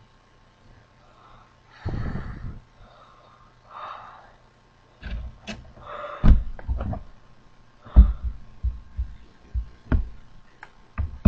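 Two heavy breaths drawn through a rubber gas mask's filter, then a string of short knocks and bumps as the mask is handled and pulled off the face.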